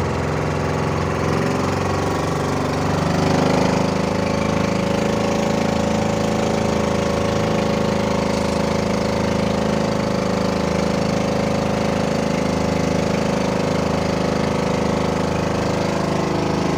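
Small boat engine running steadily. About three seconds in it speeds up a little, and then it holds an even pitch.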